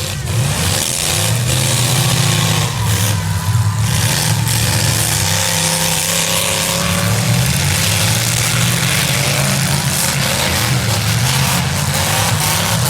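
V8 engines of demolition derby cars revving, their pitch rising and falling continuously and loud throughout.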